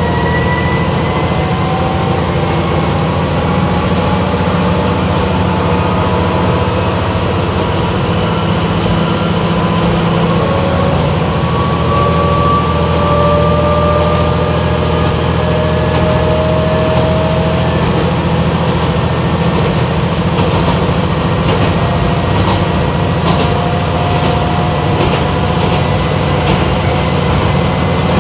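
Cabin running sound of a Yamagata Railway YR-880 diesel railcar pulling away from a station: a steady diesel engine drone under a transmission whine that climbs slowly in pitch as it gathers speed. In the second half the wheels click over rail joints.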